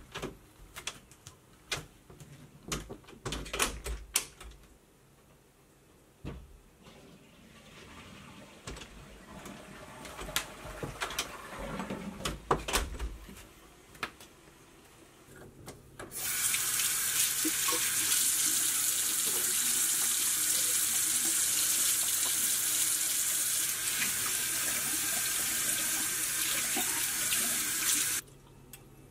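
Washbasin tap running into the sink: a steady rush of water that starts suddenly about halfway through and is shut off sharply near the end. Before it come scattered knocks and clicks, among them a door being handled.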